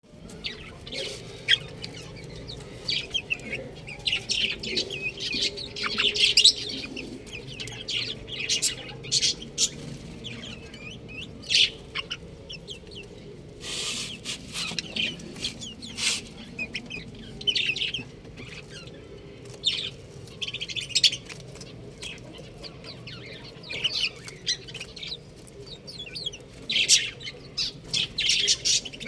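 Domestic chicks peeping: many short, high-pitched chirps in quick overlapping runs, over a low steady background hum.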